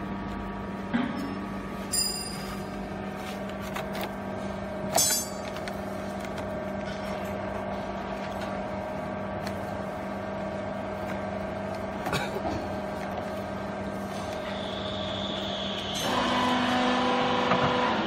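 Steady hum of machinery, likely the baler's hydraulic power unit running, with a few light clicks and knocks as cord is tied around a compressed cardboard bale by hand. About two seconds before the end, a louder whine with several steady tones joins the hum.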